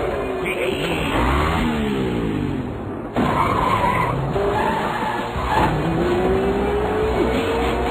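Sound effects of an animated racing vehicle: an engine revving with its pitch sweeping up and down over a noisy rush. The sound changes abruptly about three seconds in. Over the last two seconds the engine note climbs steadily.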